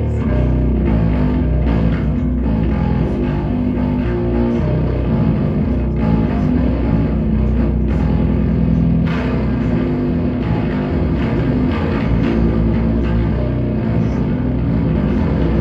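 Electric guitar played loud through a Sunn Model T and an Orange OR80 head into an Orange OBC810 8x10 cabinet and a Sunn 4x12 cabinet: continuous heavy rock riffing with sustained low notes.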